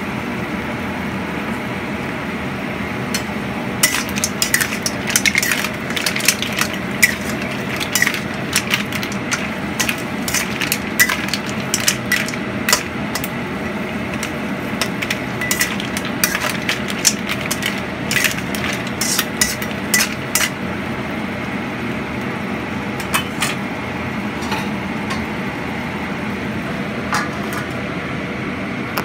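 Metal spatula stirring mussels in a wok: a run of sharp clacks and scrapes of steel on the pan and on the shells. It starts about four seconds in and mostly stops around two-thirds of the way through, with a few more clacks later. A steady rushing hum runs underneath.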